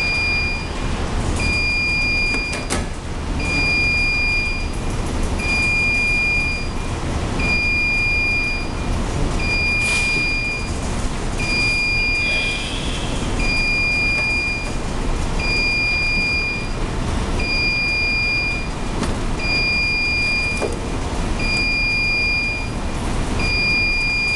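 Electronic beeper sounding a steady high-pitched beep about a second long, repeating every two seconds, over a steady low hum.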